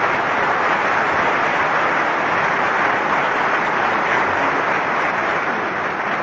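Large concert-hall audience applauding: a dense, even clapping that holds at a steady level throughout.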